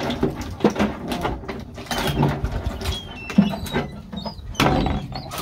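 Dungeness crabs being cleaned by hand: shells cracking, snapping and clattering as the back shells are pulled off, an irregular run of sharp clicks.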